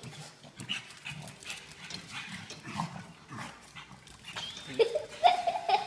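A pug and a cat sparring on a tile floor: quick clicks and scrabbling of paws and claws on the tiles, with low rough grunting. A louder drawn-out pitched call comes in near the end.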